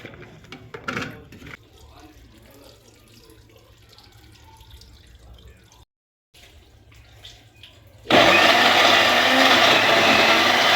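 A few light knocks, then about eight seconds in an electric blender switches on and runs loud and steady, blending coconut flesh for coconut milk.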